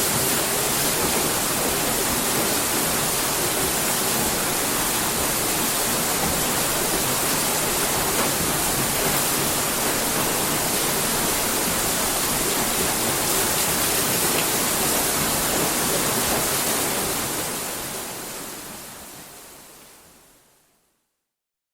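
Water rushing and splashing off a turning water-mill wheel, a steady, even rush that fades out over the last few seconds.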